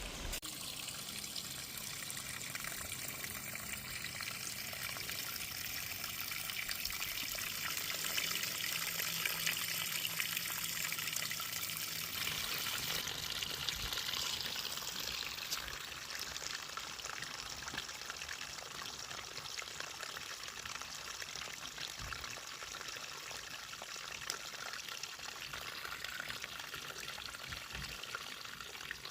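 Water from a small pump-fed flower-pot fountain pouring and trickling steadily.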